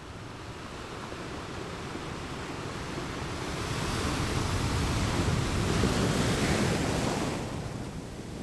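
Ocean waves breaking on a beach: the surf builds over the first few seconds, one wave washes in loudly for about three seconds, then it falls away near the end.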